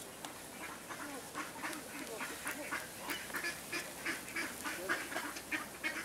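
Ducks quacking: a steady run of short calls, several a second, a little louder in the second half.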